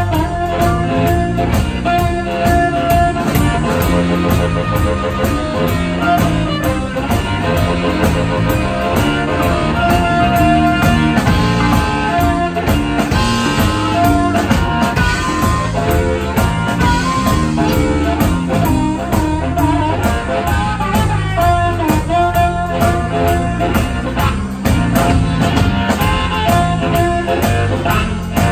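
Live electric blues band playing an instrumental passage: a blues harmonica played cupped against the vocal microphone leads with long held notes over electric guitar, electric bass and drums keeping a steady beat.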